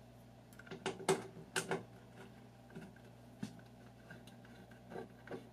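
Light clicks and taps of hands fitting a plastic oil line onto the brass outlet fitting of an automatic lubricator, about eight small irregular ticks, over a steady low hum.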